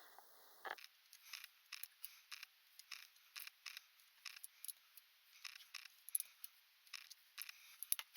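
Light metallic clicking, two or three sharp clicks a second, as screws are put in and worked with a hand tool to fix the new gear to a Bosch Classic eBike motor. A firmer knock comes less than a second in.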